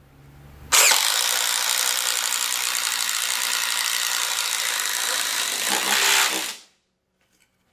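Cordless impact driver at top speed, its hammer mechanism impacting rapidly as a hex-shank spade bit bores through a wooden board. It starts about a second in, runs for about six seconds, and stops abruptly.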